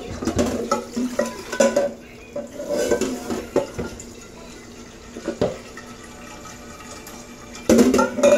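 Kitchen tap running into a pot in a stainless-steel sink, with irregular knocks and clatter as the pot and a plastic cup are handled. The loudest clatter comes near the end, as the pot is lifted.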